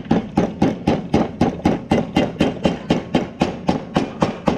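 A hammer tapping a new oil seal into the swing-arm hub housing: rapid, even blows, about four a second.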